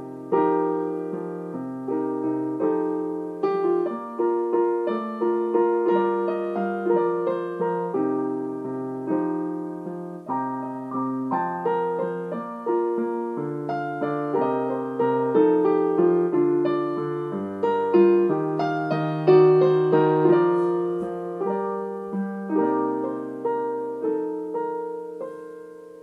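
Solo piano music: a melody over chords, each note struck and then fading, playing on without a break.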